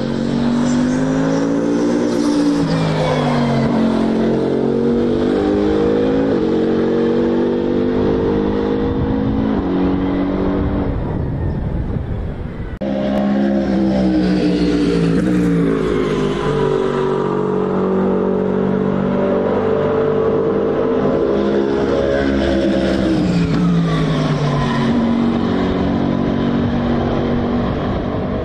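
Twin-turbo V8 of the Toyota/Lexus GR GT3 race car running hard on track, its engine note climbing and stepping with gear changes and sweeping down as it slows. Halfway through the sound dips, then comes back abruptly with another run past.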